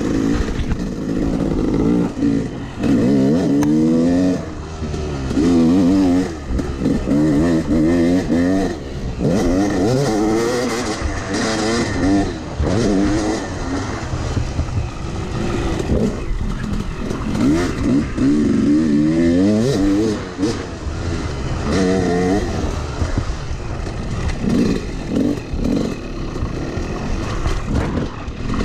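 Yamaha YZ250X two-stroke dirt bike engine under hard riding, revving up and falling back again and again as the throttle is opened and closed and gears change.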